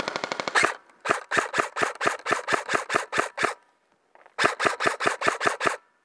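An airsoft electric gun firing: a fast full-auto burst that ends about half a second in, then two strings of rapid shots at about five a second with a short pause between them.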